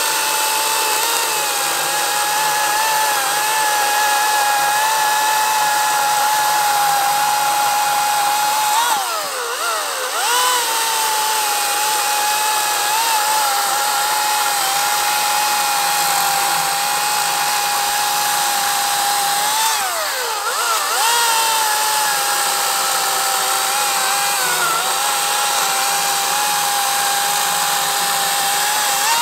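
Atlas 80V cordless brushless chainsaw cutting through a log with a steady high electric whine. Twice, about a third and two thirds of the way through, the motor's pitch briefly drops and rises again.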